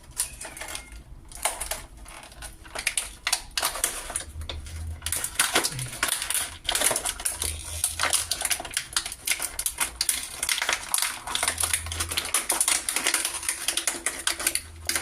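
Rapid, irregular clicking and rattling of metal deadbolt lock parts being handled and fitted together.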